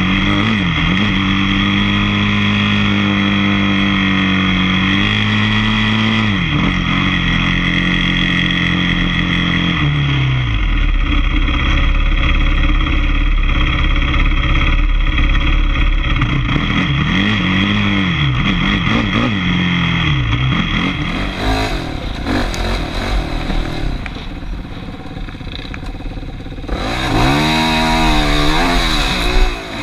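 Quad (ATV) engine being ridden, revving up and down with the throttle and gear changes. It eases off and gets quieter for a few seconds past the middle, then revs hard again near the end.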